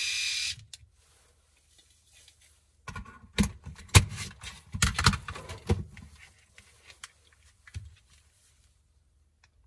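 A three-head rotary electric shaver buzzing, switched off about half a second in. After a short pause come a cluster of plastic knocks and rattles, with a few small clicks near the end, as the shavers and the charging adapter and cable are handled.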